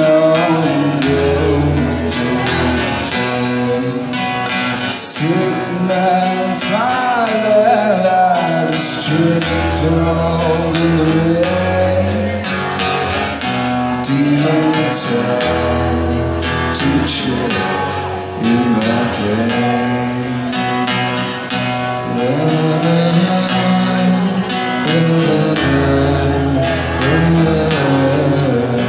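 A man singing over his own acoustic guitar, played throughout.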